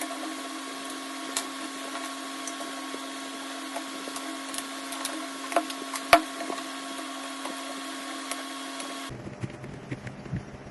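A small motor or power tool running steadily at an even pitch, with scattered light clicks and knocks, cut off abruptly about nine seconds in and replaced by a lower hum.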